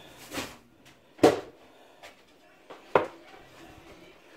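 Spice jars clacking as they are handled and set down, three short knocks: a light one near the start, then sharp ones a little over a second in and about three seconds in.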